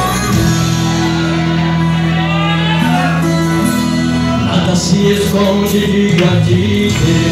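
Live gospel music: a male singer with a band accompaniment of steady held notes.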